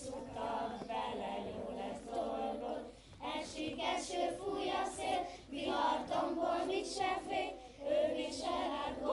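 A group of children singing a song together, a woman's voice leading them, in short phrases with brief breaks between.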